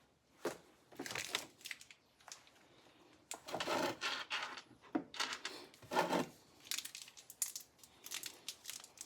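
Packaging crinkling and rustling in irregular bursts as it is handled and opened, loudest around the middle.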